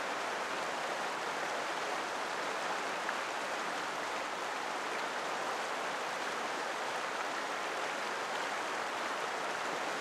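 Mountain stream water running with a steady, even rush.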